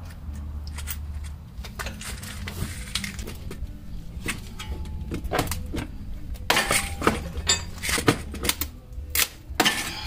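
Tools and metal hardware clinking and knocking: scattered sharp clicks and clatters, a few with a brief metallic ring, louder and closer together from about six and a half seconds in, over a low steady hum.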